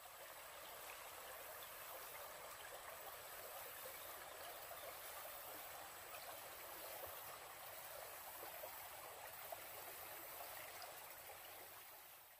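Shallow creek running over rocks: a faint, steady babble of flowing water that fades in at the start and fades out near the end.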